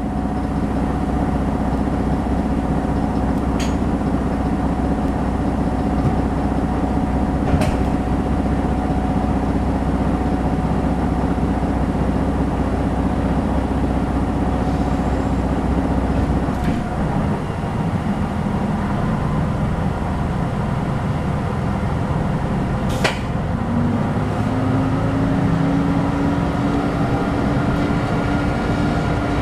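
JR Shikoku N2000 series diesel railcar heard from inside the passenger cabin: the diesel engine idles with a heavy, steady hum, its sound changes about halfway through, and near the end it revs up with a rising note as the train starts to pull away from the station. A single sharp click comes a few seconds before the rev-up.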